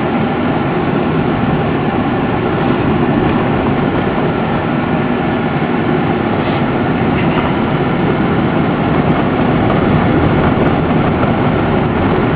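Steady, loud rumble of a Ford 15-passenger van being driven on an unpaved fire road, heard from inside the cabin: engine and road noise.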